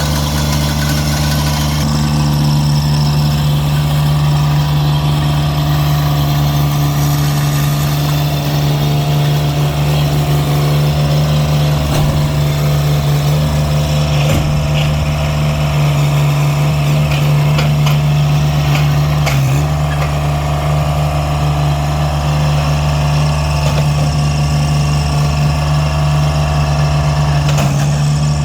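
An engine idling steadily, with a few faint knocks partway through.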